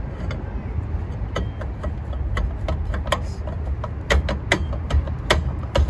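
Rear brake drum of a Toyota Corolla being turned by hand over freshly adjusted new shoes, giving a run of light, irregular clicks that come faster and louder from about halfway through, over a steady low rumble.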